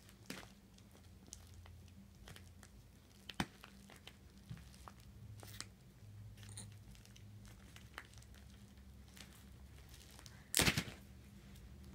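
Packaging being picked at and crinkled by hand while trying to get it open: scattered small crackles and clicks, with a louder burst of crinkling and tearing about ten and a half seconds in.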